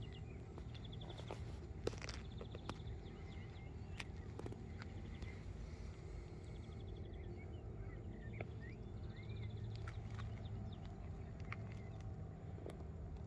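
Outdoor ambience: small birds chirping and trilling several times over a steady low rumble, with scattered clicks and crunches of footsteps on gravel.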